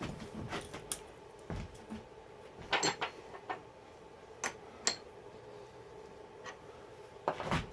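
Scattered metallic clicks and clinks, about a dozen, as a tool holder with an electronic edge finder is fitted into a mini mill's spindle, over a faint steady hum.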